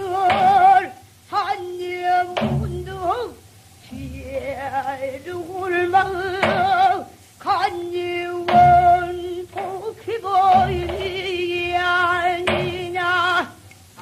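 Female pansori singer singing a danga, long held notes with a wide, heavy vibrato and sliding ornaments, with short low drum strokes, typical of the buk, recurring between phrases.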